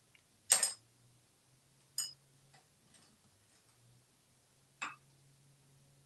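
A metal utensil clattering and clinking against a hard countertop as an African grey parrot handles it: a loud clatter about half a second in, a sharper clink at two seconds and another near five seconds, with a few faint taps between. A faint steady low hum runs underneath.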